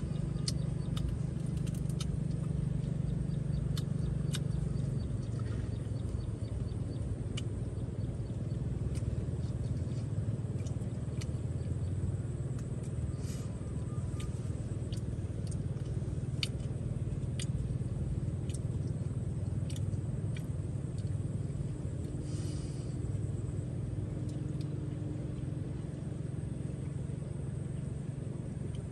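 A steady low rumble throughout, with scattered light clicks of chopsticks against a ceramic rice bowl.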